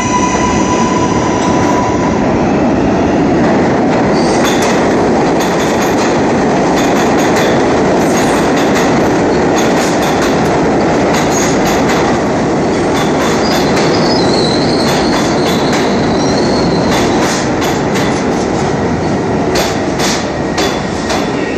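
NYC subway trains: a departing R142A train's traction motors whine with a few steady tones for the first couple of seconds, then a train runs past on the neighbouring track with a loud, steady rumble. The wheels squeal about two-thirds of the way in and again at the end, and there is a run of rapid clicking over rail joints near the end.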